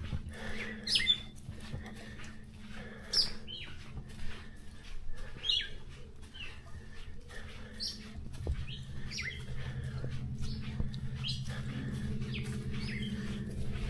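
A bird chirping over and over, short high sweeping notes about once a second. A low steady hum grows louder about halfway through.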